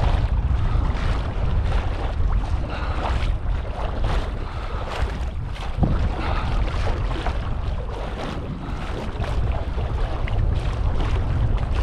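Strong wind buffeting the microphone in a heavy low rumble, with small waves lapping and splashing, and a single brief knock about six seconds in.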